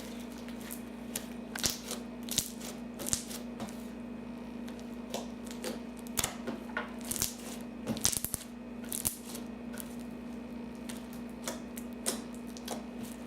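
Clear slime loaded with glitter being squeezed and worked by hand, giving irregular crunchy clicks and crackles, with a quick flurry of them about eight seconds in. A steady low hum runs underneath.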